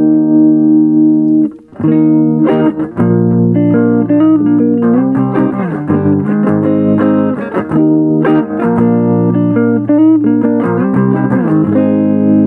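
Electric guitar, a Les Paul, played through a Marshall Origin 5C 5-watt all-tube combo with an 8" Celestion speaker. A held chord rings and is cut off about a second and a half in, then a run of chords and single notes follows. The tone is somewhat hard and not creamy.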